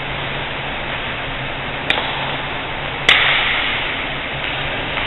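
Two sharp badminton racket strikes on a shuttlecock about a second apart, the second louder with a hissy tail that fades over about a second, over a steady hiss and low hum.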